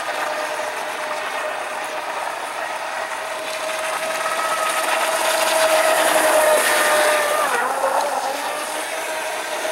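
Miss Geico RC speed boat running at speed: a steady motor whine over the hiss of spray off the hull. The whine dips in pitch about three-quarters of the way through, then picks up again.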